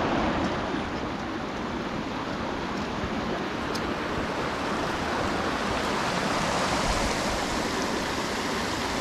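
Small mountain stream rushing over rocks: a steady, unbroken rush of water.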